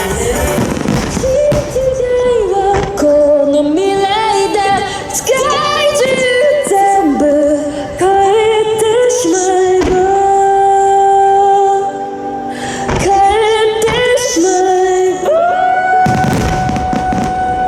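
A pop song with a female lead singer played over the festival loudspeakers, with a fireworks display going off over it: several sharp bangs from shells bursting through the song.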